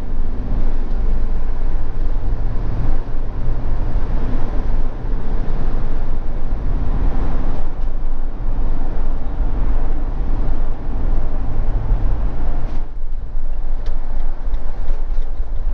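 Motorhome driving at road speed, heard from inside the cab: a steady drone of engine and tyre noise, strongest at the low end, easing slightly near the end.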